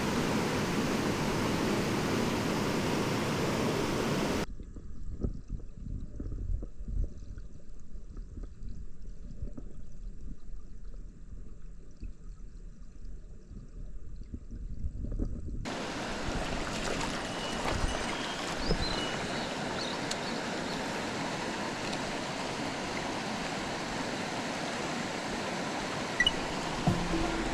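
Clear mountain stream running over its rocky bed in a steady rush. From about four seconds in, the sound goes dull and muffled for roughly eleven seconds, with only low rumbling and gurgling, as heard underwater through a submerged camera. After that the open rush of the stream returns.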